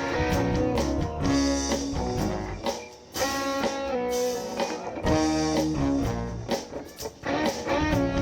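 Live band playing an instrumental passage with electric guitar to the fore over bass and drums, in a bluesy style.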